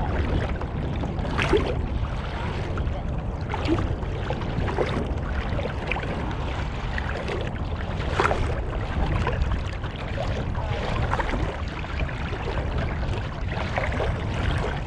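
Water splashing and slapping against the hull of a small Banshee sailing dinghy under way, with a few louder splashes, over a steady wind rumble on the microphone.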